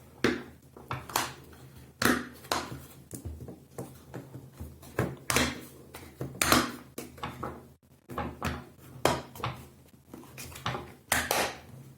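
Irregular plastic clicks and knocks of a Tutis stroller wheel being handled and snapped back onto its greased axle.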